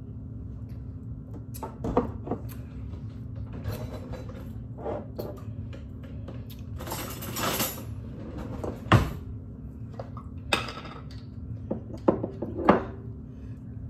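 Scattered clinks, taps and sharp knocks of utensils and containers handled at a kitchen counter while ingredients go into a mixing bowl, with a short hiss about seven seconds in, over a steady low hum.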